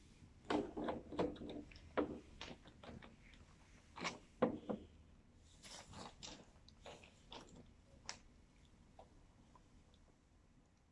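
Irregular clicks, knocks and crunches of a plastic water tank being handled and lifted off the base of a portable sink, thinning out over the last couple of seconds.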